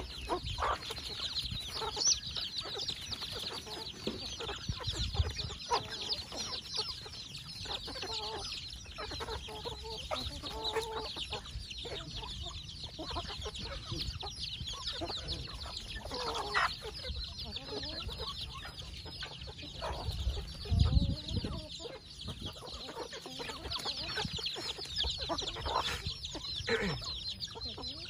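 A flock of chickens feeding: chicks peeping constantly in a dense high chorus while hens and roosters give short clucks here and there. A brief low thump comes about three-quarters of the way through.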